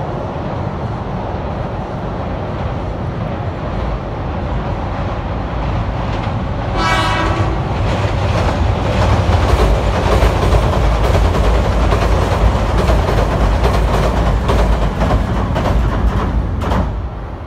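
Meitetsu 1700 series electric train crossing a steel girder railway bridge. A short horn blast sounds about seven seconds in. Then comes the loud rumble of the train on the bridge, with rapid clacking of wheels over the rail joints, which drops away sharply near the end as the train clears.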